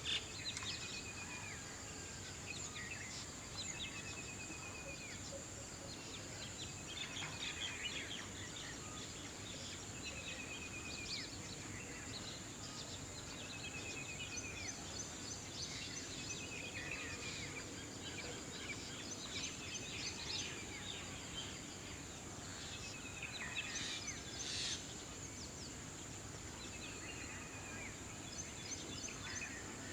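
Outdoor ambience with small birds calling: short trilled calls repeated every two to three seconds, over a steady high-pitched whine.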